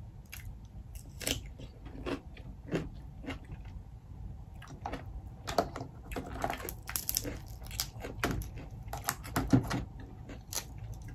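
Close-up eating sounds: irregular crisp crunches and chewing as cucumber is eaten, with the clicks of snow crab legs being pulled apart, thicker in the second half.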